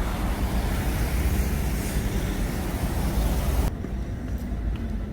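Steady rumble and hiss of road vehicles. About three and a half seconds in it drops suddenly to a quieter rumble with a few faint clicks.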